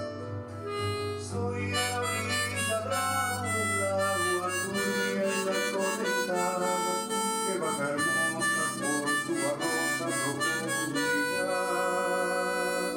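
Diatonic harmonica in C playing a slow bolero melody in G, cross-harp style, with some notes bent, over a steady musical accompaniment.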